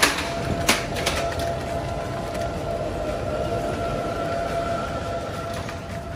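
A plastic supermarket shopping cart is pulled free from a stacked row with a few sharp knocks. It is then rolled across a tiled floor, with a steady whistling whine from its wheels while it rolls.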